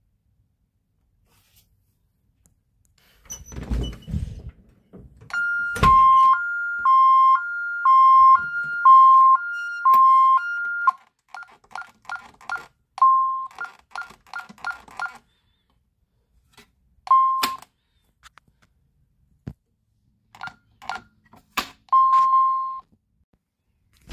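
Honeywell Vista 20P alarm system sounding its alarm after the garage door zone is tripped while armed instant: a loud two-tone signal alternating high and low about twice a second for roughly five seconds, preceded by a dull thud. Then a quick run of short keypad beeps as the code is keyed in to silence it, a few more single key beeps, and one longer beep near the end.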